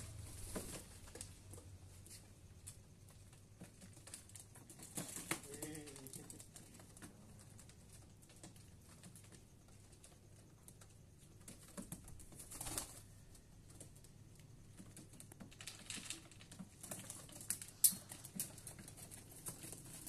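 Quiet, scattered light clicks and scrapes from a pigeon being handled at wooden nest boxes, with a short low pigeon coo about five seconds in. A single sharp click near the end is the loudest sound.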